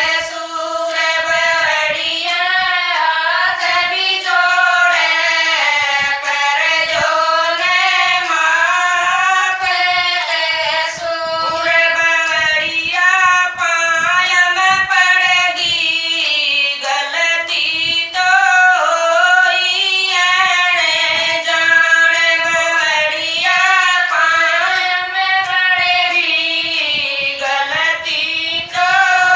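Women singing a Haryanvi devotional folk song (bhajan) together, voices carrying a continuous melody in unison.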